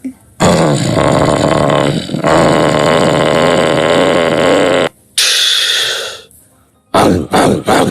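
A man imitating a motorbike engine with his voice: a long, rasping, engine-like drone for about four seconds, then a short hiss, then a few choppy mouth sounds near the end.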